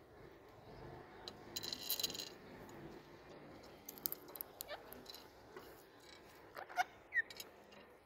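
Rose-ringed parakeets pecking at sunflower seeds on a glass mirror: scattered small clicks and taps of beaks and seed husks, with a brief rattle about two seconds in. Two short, sharp squeaks come about seven seconds in.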